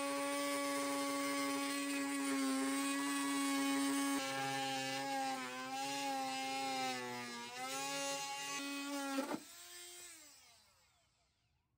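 High-speed corded rotary tool cutting through the plastic seam of a car headlight housing: a steady high whine whose pitch dips several times midway. About nine seconds in it is switched off and the whine falls away as it spins down.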